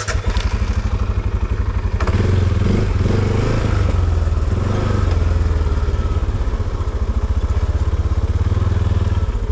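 ATV engine running close by, with a fast, even pulsing; it gets louder about two seconds in and then holds steady.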